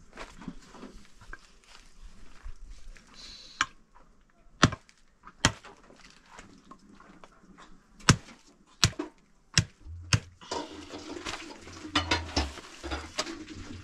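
A hatchet chopping through a sheep's leg bones on a wooden board: about seven sharp blows spread over several seconds. Near the end come a steadier rustling noise with a faint low hum and a few lighter knocks.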